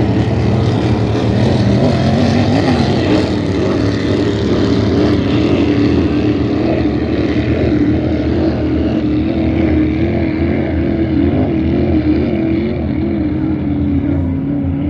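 Racing powerboat engines running hard: a loud, steady drone whose pitch wavers up and down, its brightness slowly fading as the boats pull away.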